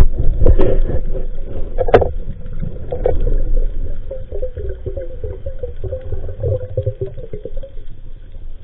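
Underwater sound picked up through an action camera's waterproof housing: a steady low rumble with several sharp knocks in the first three seconds, then a wavering mid-pitched hum that fades out near the end.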